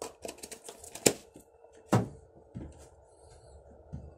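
Small kitchen items being handled and set down on a table: several sharp clicks and knocks, the loudest about one second and two seconds in.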